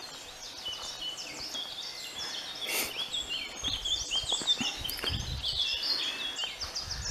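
Woodland birds singing, many quick chirps and trills overlapping throughout, with a few low thuds in the middle and near the end.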